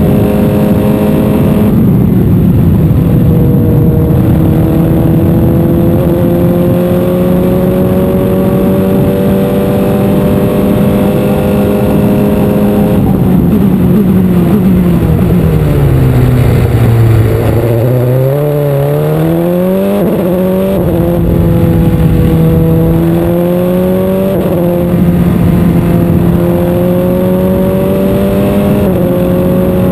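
Open-wheel single-seater racing car engine heard onboard at speed, held at high revs with brief pitch steps at the gear changes. About halfway it drops steadily in pitch as the car slows for a corner, then climbs again through quick upshifts.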